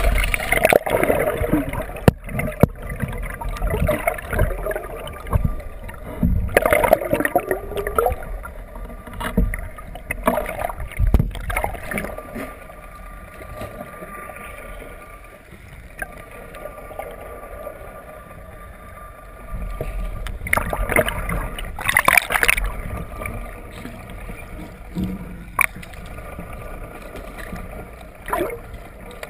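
Muffled underwater rushing and bubbling of sea water against a GoPro in its waterproof housing, with irregular knocks and bumps on the housing and a faint steady hum from the boat. It is louder and busier in the first ten seconds and again about twenty seconds in, calmer between.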